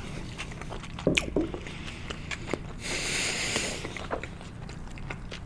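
Close-miked chewing of sushi: soft wet squishing with many small mouth clicks, and a breath out through the nose about three seconds in.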